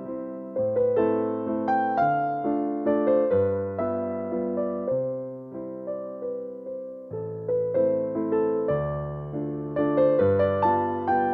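Background piano music: a slow, gentle melody with a new note about every half second over longer held bass notes.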